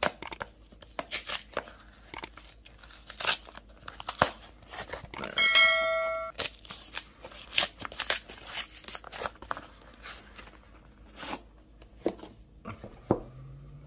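A shipping package being torn open by hand: an orange mailing envelope and brown packing paper ripping, crinkling and rustling in short irregular bursts. Just over five seconds in, a short bright chime rings for under a second, a bell sound effect that goes with the on-screen subscribe-button animation.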